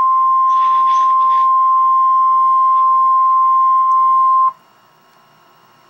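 Weather-radio EAS warning alarm tone: a single steady tone near 1 kHz (the 1050 Hz alert) that cuts off suddenly about four and a half seconds in. It signals that a warning message follows, here a special marine warning.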